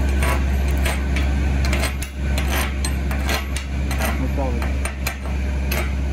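A 7018 stick-welding electrode burning in an arc on a steel beam: a steady, irregular crackling and sputtering, over a constant low hum.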